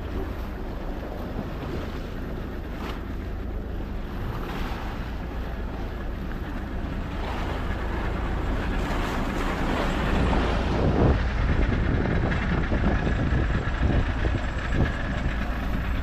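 Fishing boat's engine running steadily, a low drone under a haze of wind and water noise, getting somewhat louder about halfway through.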